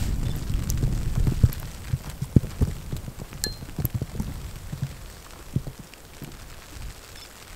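Blizzard wind buffeting the microphone, dying down after about two seconds and leaving scattered soft taps and thuds.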